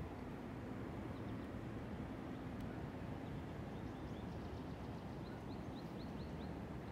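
Steady low outdoor rumble, with a small bird giving a quick run of short, high chirps, about four a second, in the second half.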